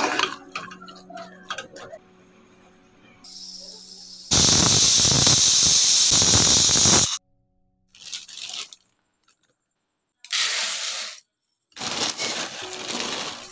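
Pressure cooker whistling, a loud steam hiss lasting about three seconds that begins a few seconds in: the cooker has come up to pressure and is venting through its weight valve. A few shorter bursts of noise follow.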